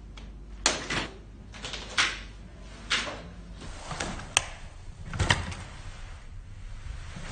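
Mimosa Tablemate stroller being folded: its frame and hinges knock and clack several times as it collapses, with a sharp click a little past four seconds in as the fold lock engages.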